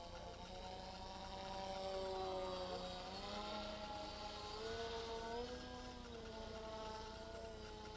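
Electric RC Slow Boat model airplane's motor and propeller whining in flight, the pitch falling and rising several times as it passes and climbs.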